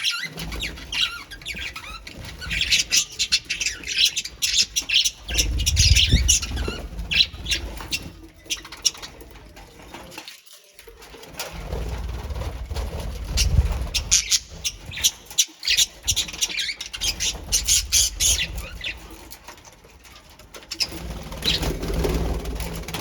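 A colony of pet birds chirping and calling in quick short notes, with wings flapping, over several stretches of low rumble.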